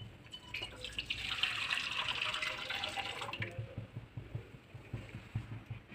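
Milk being poured into a nonstick pan: a steady splashing pour that starts about half a second in and thins out after about three seconds, followed by a few faint knocks.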